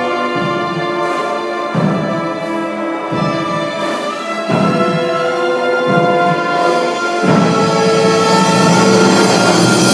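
Symphony orchestra playing held chords over low strokes that recur about every second and a half, growing louder and fuller about halfway through and again toward the end.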